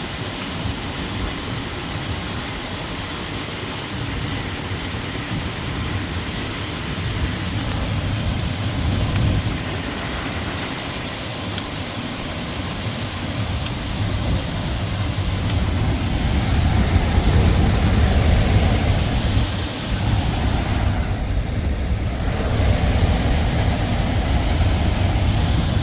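HVAC air handler running, its blower moving air in a steady rushing hum with a low rumble. It grows somewhat louder about two-thirds of the way through.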